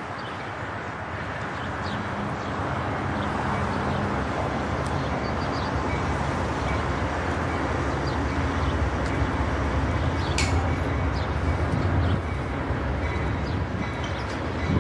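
Amtrak train with two GE P42DC diesel locomotives approaching. A steady low engine rumble grows slowly louder.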